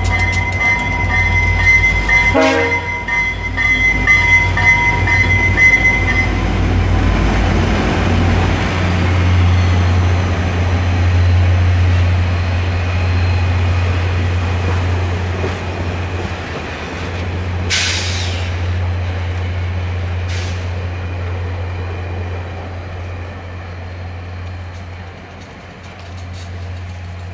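VIA Rail F40PH-2 diesel locomotive pulling a passenger train out of the station, its engine rumbling as it passes, then the cars rolling by and the sound fading as the train draws away. A steady high-pitched signal sounds for the first six seconds, with a sharp knock a couple of seconds in and a short hiss about two-thirds of the way through.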